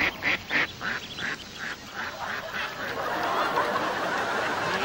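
White domestic goose honking in a quick run of short calls, about three to four a second, which fade out about halfway through. A steady rushing noise carries on after the calls.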